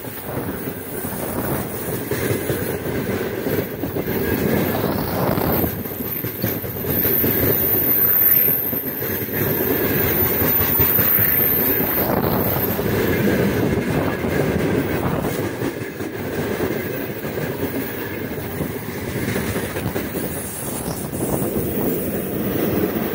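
Open-top freight wagons of a heavy freight train rolling past close by: a steady rumble with the wheels clattering over the rail joints, and a thin high wheel squeal for a few seconds in the middle. Near the end the rear pusher, a 4ES5K 'Yermak' electric locomotive, starts to pass.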